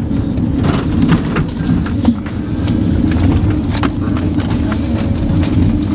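Steady low rumble of engine and road noise inside a moving van's cabin, with a few light rattles and knocks.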